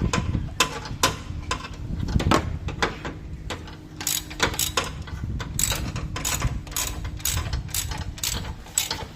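Ratchet wrench clicking in quick repeated strokes, turning a bolt while the AC compressor drive belt is fitted; the clicks come faster in the second half.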